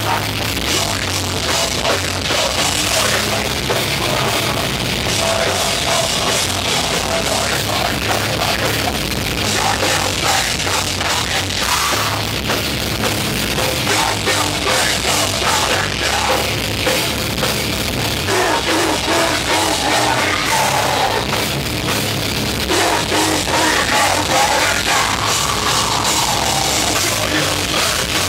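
Live crust punk band playing loud and fast: distorted guitars and a drum kit, with vocals shouted into microphones.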